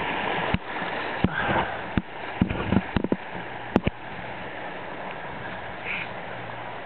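Shallow river rushing steadily over a stony riffle, with a cluster of sharp knocks and clicks in the first four seconds.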